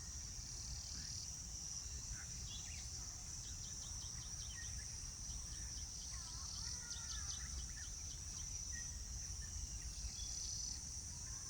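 Steady high-pitched trilling of crickets and other insects over a low background rumble, with faint scattered bird chirps and a few short runs of quick ticking calls.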